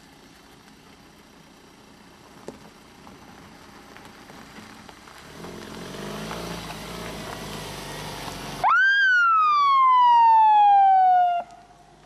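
Ambulance engine growing louder as it approaches, then, near the end, a single loud siren wail that shoots up sharply and slides slowly down for about three seconds before cutting off.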